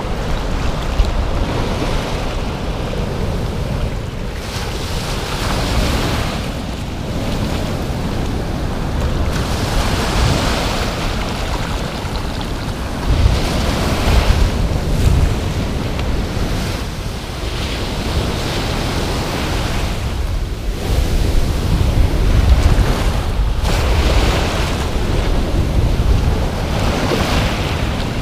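Ocean surf washing in the shallows, with waves surging and hissing in every few seconds, and wind rumbling on the microphone.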